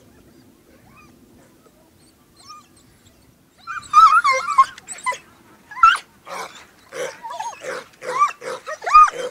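A pack of harrier hounds baying in full cry, many overlapping howling calls with sliding pitch, starting about four seconds in and running on densely.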